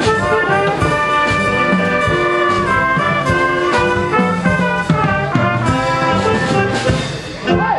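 Brass band music playing, with horns holding long chords.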